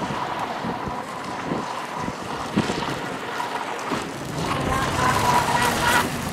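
Electric Pro Boat Miss Geico RC speedboat, on a 6-cell LiPo, running at speed on open water: a thin motor whine over the steady hiss of the hull and spray, with wind noise on the microphone. The whine grows louder from about four and a half seconds in, then drops away suddenly near the end.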